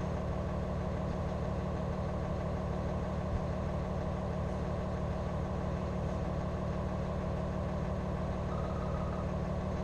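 A motorhome's engine idling under the coach: a steady, even hum that does not change.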